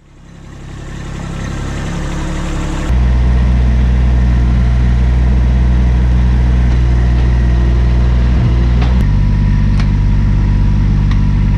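Kubota B2601 compact tractor's three-cylinder diesel engine idling steadily. It fades in at the start, then turns abruptly louder and steadier about three seconds in and shifts slightly in tone about nine seconds in.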